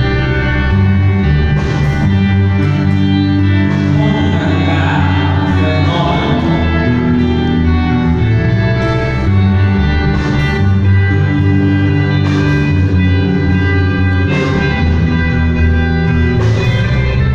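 A band playing music: held chords that change every few seconds over low bass notes.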